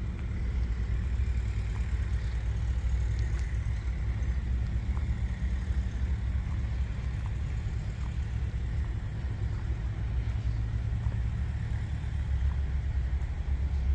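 Combine harvester's engine running steadily, its sound mostly low-pitched and unbroken, a little louder about a second in and again near the end.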